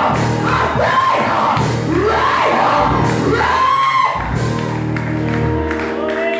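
Congregation voices shouting and calling out over church keyboard music. Held keyboard chords come through more clearly near the end.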